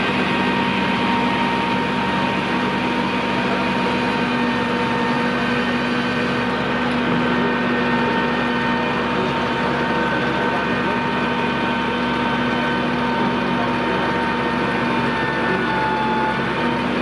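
Iveco Magirus turntable ladder running as its ladder and basket are moved: a steady engine hum with a high whine over it. The whine dips slightly in pitch near the end.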